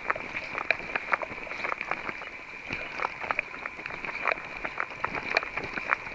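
Footsteps of a hiker on a mountain trail: an uneven run of sharp clicks and scuffs, a few a second, over a steady hiss.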